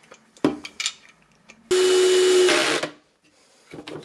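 Cordless drill driving a screw into a wooden beam in one short run of under a second, starting about two seconds in, after a few light knocks of handling.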